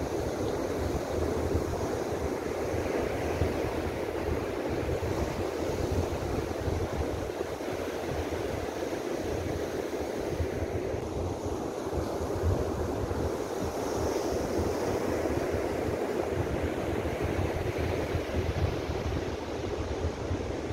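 Ocean surf breaking and washing steadily on the beach, with wind buffeting the microphone.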